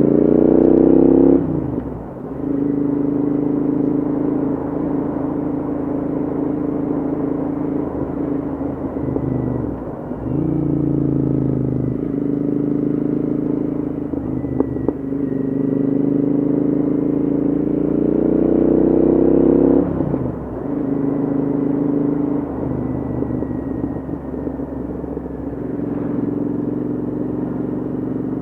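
Royal Enfield Interceptor 650's parallel-twin engine running through Hitchcock's aftermarket headers and shorty silencers while being ridden. The exhaust note climbs under throttle, falls away sharply about a second and a half in, again around ten seconds and again around twenty seconds, and holds steady between. A sharp pop comes about halfway through.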